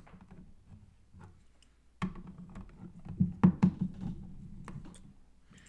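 Plastic clicks and light knocks of an action figure being handled and fitted onto its display base, starting about two seconds in with a cluster of sharper taps around the middle.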